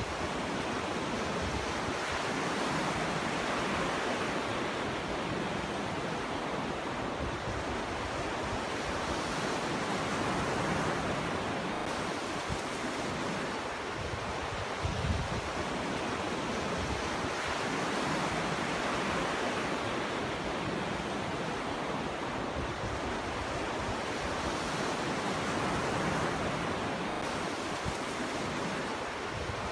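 Ocean surf washing onto a beach, a steady rush of breaking waves that swells and ebbs every few seconds. A brief low thump comes about halfway through.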